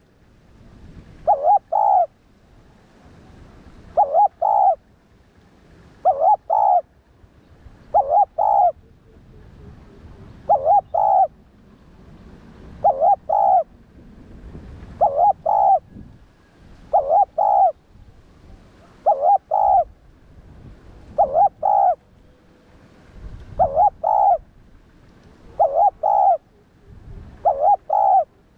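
Spotted dove cooing its repeated territorial phrase about every two seconds, each phrase a quick run of two or three coos.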